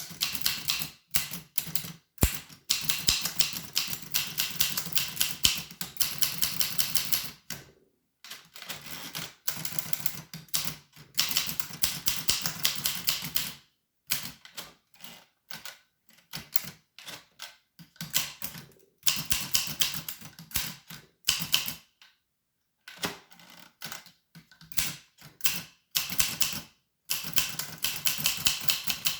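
Typing on an 1895 Williams No. 1 typewriter: quick runs of key and typebar strikes, broken every few seconds by short pauses.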